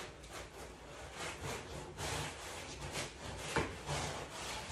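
Cardboard box and plastic packing rustling and scraping as packed furniture parts are shifted inside a large shipping carton, with one sharp knock about three and a half seconds in.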